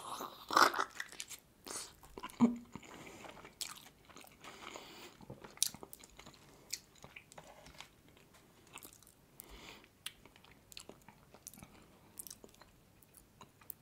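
Close-miked eating of steamed meat dumplings (manti): a bite into a soft dumpling, loudest about half a second in, then wet chewing and smacking with scattered light clicks of a plastic fork.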